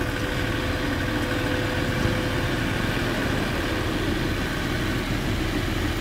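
Farm tractor's diesel engine running steadily under load as it drags a rear-mounted tillage implement through a flooded paddy field.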